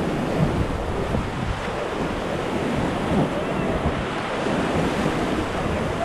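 Rushing white water of a river around a raft, a steady loud rush, with wind buffeting the microphone.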